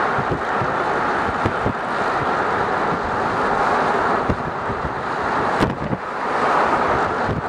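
Wind buffeting the microphone: a loud rushing noise that swells and eases, with scattered low thumps.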